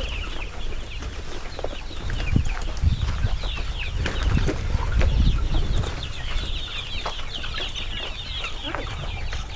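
Young broiler chickens peeping: many short, high, falling chirps overlapping continuously, with low thumps of walking mixed in.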